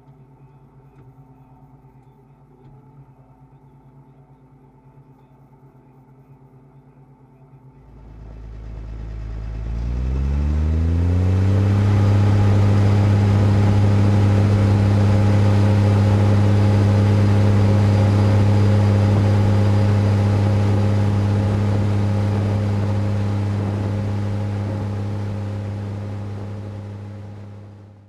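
New Holland T6080 tractor's six-cylinder diesel engine: a faint steady hum at first, then, about eight seconds in, much louder and revving up over a few seconds before running steady at high revs, heard close to the exhaust stack. It fades out near the end.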